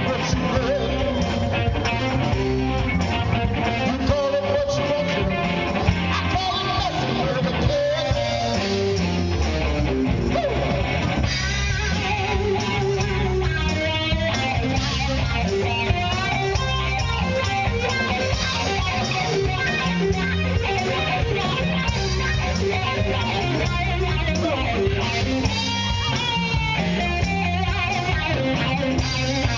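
A rock band playing live, electric guitar to the fore over bass guitar and a drum kit keeping a steady beat.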